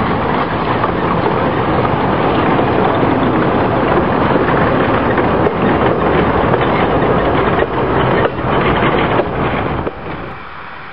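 Narrow-gauge steam locomotive and goods wagons rolling past at close range: a steady loud rumble and rattle of wheels and wagons on the track, with a few sharp clacks late on. About ten seconds in the sound drops abruptly to a much quieter background.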